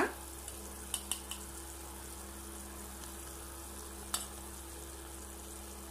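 Watery onion-and-spice base simmering in a stainless steel wok, a steady low sizzle with a faint electrical hum under it. A few light ticks come about a second in and again near four seconds.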